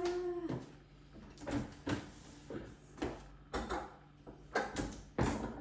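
Irregular knocks and clacks from the metal frame and folded deck of a folding treadmill being handled. The deck is stuck upright and won't come down.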